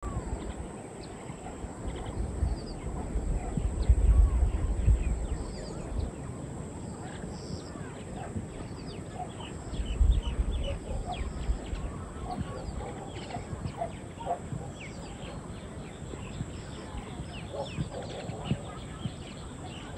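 Rural hillside ambience: birds chirping and calling throughout, with gusts of wind buffeting the microphone, strongest a few seconds in and again about halfway through.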